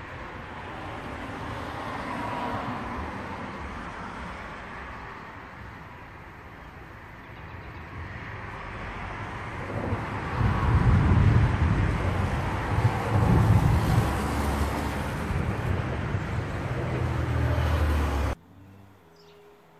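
Gusty wind ahead of a storm blowing on the microphone. It grows stronger and rumbles low about halfway through, then cuts off suddenly near the end.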